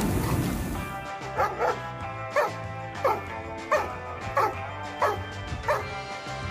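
A dog barking about eight times in short, sharp barks, spaced roughly half a second to a second apart, starting about a second in, over background music.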